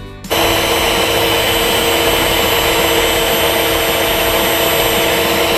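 OTTO HM-273 electric stand mixer running at high speed, its twin beaters whipping a thick, foamy sponge-cake batter: a loud, steady motor whine. It starts abruptly a moment in, replacing background music.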